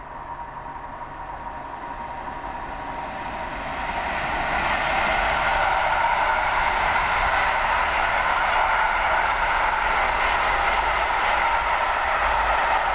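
A container freight train passing on main-line track. The sound swells over the first four seconds as the train nears, then holds as a steady rolling noise of the container wagons' wheels on the rails.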